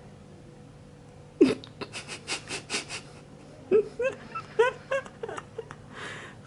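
A baby's short whimpering squeaks: several brief high, rising cries. Before them come a sudden sharp sound and a quick run of about five breathy puffs.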